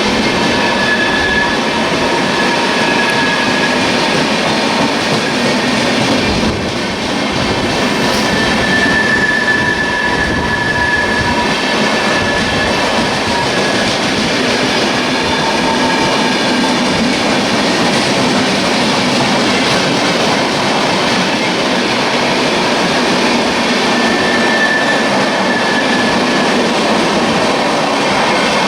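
Indian Railways express passenger train running past on the line, a steady loud noise of coaches and wheels on rail, with brief high-pitched wheel squeals a few times.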